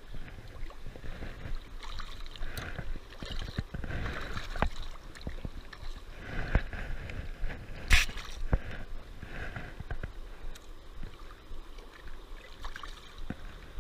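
A shallow, rocky river rushing and gurgling, with scattered knocks and clicks from handling close by. The loudest is a sharp click about eight seconds in.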